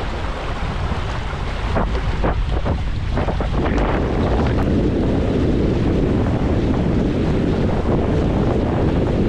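Wind buffeting the microphone and water rushing and splashing past a Hobie Getaway beach catamaran under sail. A few short splashes come in the first few seconds, then the rush turns steadier and a little louder from about four seconds in.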